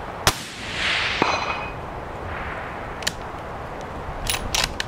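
Suppressed Mauser M18 Fenris bolt-action rifle in 6.5 Creedmoor fired once: a single sharp crack followed by a rolling echo and a short ring about a second later. Then the bolt clicks as it is worked, near the end.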